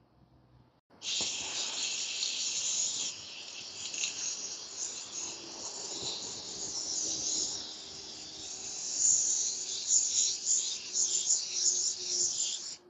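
Rust-Oleum clear matte aerosol spray can hissing as a sealing clear coat is sprayed on. The hiss starts about a second in, wavers in strength, and stops just before the end.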